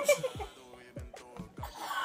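Background hip-hop beat with deep kick drums that fall in pitch, hitting two or three times a second. Brief laughter from young women at the start.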